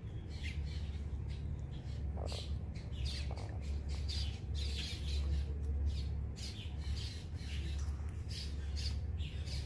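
Sulcata tortoise chewing salad, a rapid, irregular run of short crunching clicks over a steady low hum.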